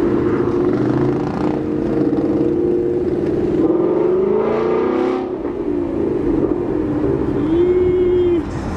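Ford Mustang GT's 5.0-litre V8 engine revving, its pitch rising and falling repeatedly. Near the end it holds a steady rev for about a second, then drops off.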